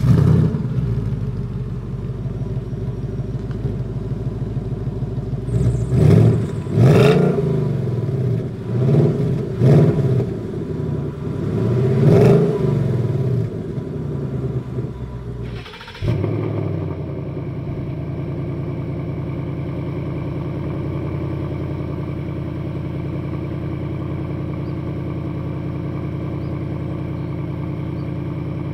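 Ford Mustang GT 5.0-litre V8 exhaust through quad tips, idling, then revved several times in quick blips that climb and fall back to idle. About halfway through the sound cuts to a second Mustang GT idling steadily.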